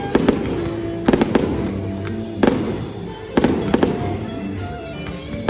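Aerial fireworks bursting in a string of sharp bangs, some in quick pairs and triplets, about eight in all, over music playing in the background.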